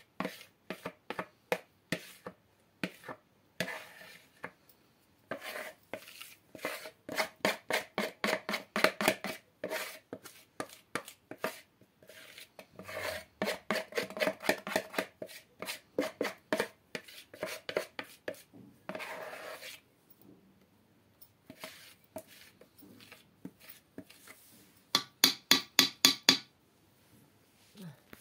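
Rapid, repeated scraping and tapping strokes on a plastic mixing bowl as the last of the cake batter is emptied out into a round baking pan, coming in bursts several strokes a second. A short run of sharper, louder taps comes near the end.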